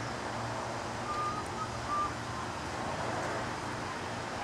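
Outdoor background: a steady low rumble like distant traffic, with a few brief high squeaks about a second and two seconds in.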